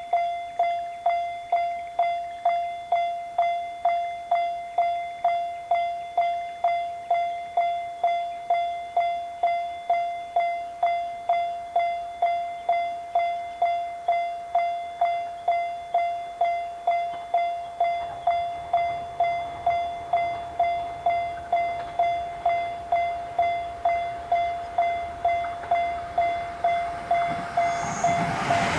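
Japanese railroad crossing alarm ringing its repeated 'kan-kan' ding, about two strikes a second at a steady pitch. In the last ten seconds the low rumble of an approaching train builds, and the train reaches the crossing right at the end.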